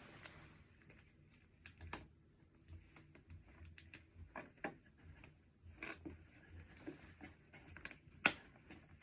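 Small handling sounds: scattered light taps, clicks and crinkles of items and packaging being arranged and fixed in place by hand, with one sharper click about eight seconds in.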